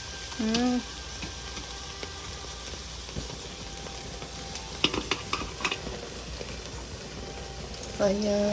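Food sizzling on a barbecue grill, a steady frying hiss, with a few sharp clicks about five seconds in. A short voice sound comes just after the start and a held sung note near the end.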